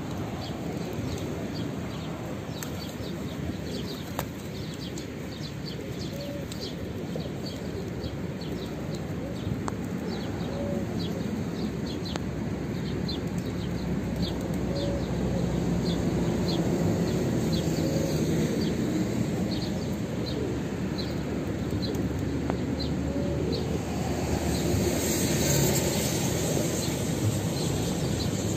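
A flock of feral pigeons feeding on paving, their wings flapping now and then, with short high bird chirps repeating about twice a second over a steady outdoor background noise.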